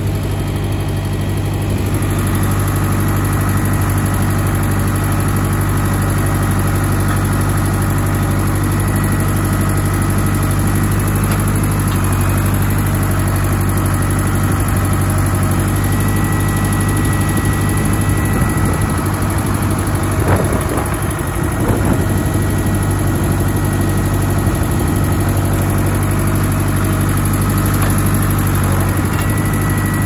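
Farm tractor engine running at a steady speed, heard from the operator's seat just behind the upright exhaust stack.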